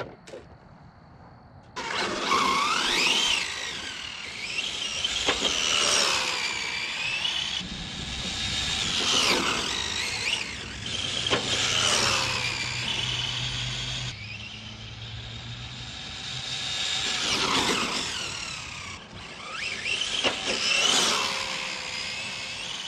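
Traxxas 4-Tec Hot Rod RC car's VXL 3S brushless motor and geartrain whining on high-speed passes, starting about two seconds in. The pitch sweeps up and falls away about six times as it speeds up and slows. It is on its tallest gearing, a 72-tooth spur and 27-tooth pinion, and reaches about 49 mph.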